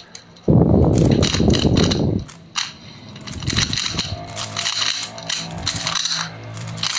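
Rapid clicking and clacking of a magnetic Drift 3M plus speed cube being turned fast during a timed solve. The loudest stretch runs from about half a second to two seconds in, followed by quicker, lighter clicks over a faint steady hum.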